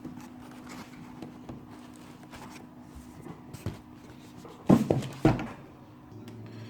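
Packaging being handled as a boxed RC transmitter is lifted out, with two sharp knocks about five seconds in, over a faint steady hum.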